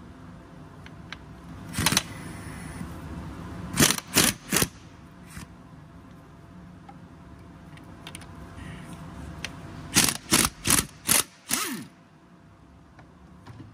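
Short clattering bursts of a tool at work in a car's engine bay: one about two seconds in, three close together around four seconds, then five in quick succession near the end.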